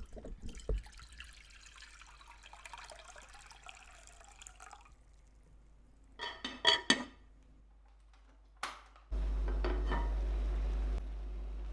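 Kitchen handling sounds: a faint hiss of water for the first few seconds, then a quick run of ringing clinks of dishware, a single sharp click, and a steady low hum over the last couple of seconds.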